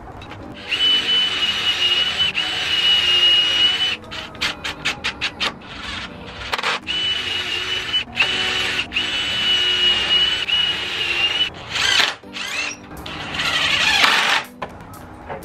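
Power drill running in several long bursts, with a run of quick short trigger pulses between them and the motor pitch sweeping up and down near the end.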